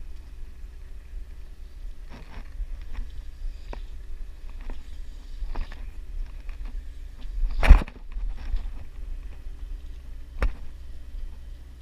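Scattered knocks and rustles of a fly rod and fly line being handled at a boat's rail, over a low steady rumble. One sharp knock, about two-thirds of the way through, is the loudest.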